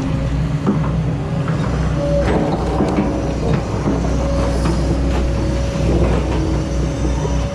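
Excavator working, its diesel engine giving a steady low rumble, with scattered knocks and clanks and an on-and-off whine.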